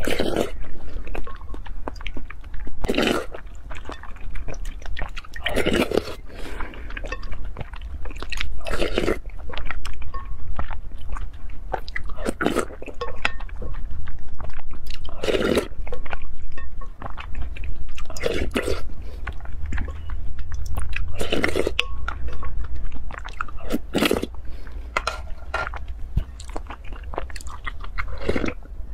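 Close-miked slurping and chewing of a milky dessert soup with black rice from a wooden spoon, a loud slurp about every three seconds. Near the end she drinks straight from the glass bowl. A steady low hum runs underneath.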